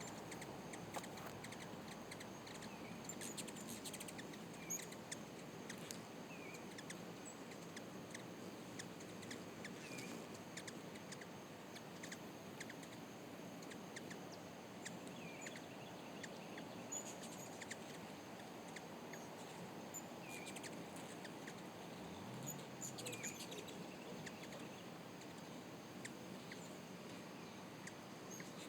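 Hummingbirds chirping: scattered short, high chirps and ticks, faint, over a steady background hiss.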